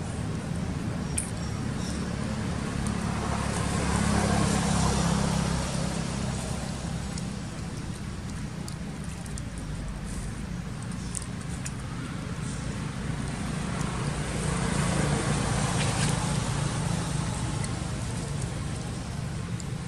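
Road traffic: a steady low rumble that swells and fades twice, about four seconds in and again about fifteen seconds in, as vehicles pass.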